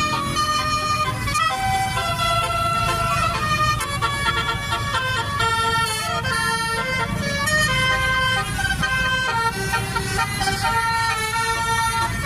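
Telolet horn of an Indonesian tour bus playing a fast melody of several tones at once, stepping from note to note, over the low rumble of the bus engine.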